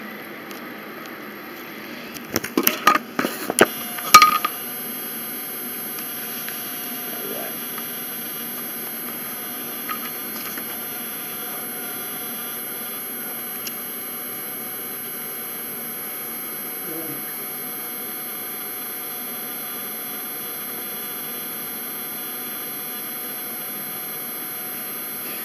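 A burst of loud knocks and clatter about two to four seconds in, from the camera being handled and set down on the table, then a steady hum and hiss of the room.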